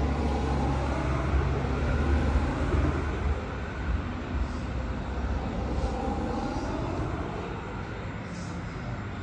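Highway traffic: a steady wash of tyre and engine noise from passing vehicles. A heavy low rumble in the first three seconds fades away.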